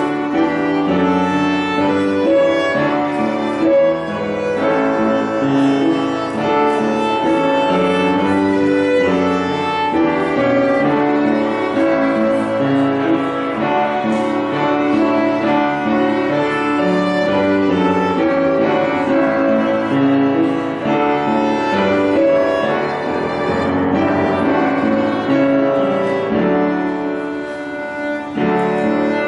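Violin playing a slow melody of sustained notes, with piano accompaniment.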